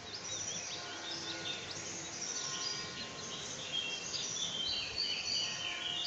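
Morning birdsong from several songbirds at once: many short chirps and quick whistled notes overlapping, growing busier over the last couple of seconds.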